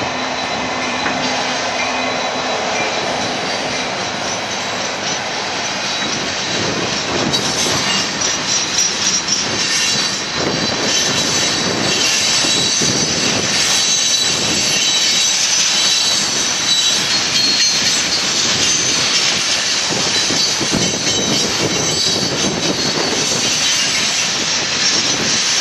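Union Pacific rock train's loaded freight cars rolling past: steady wheel-on-rail rumble with repeated clacking over rail joints and a thin, steady high wheel squeal.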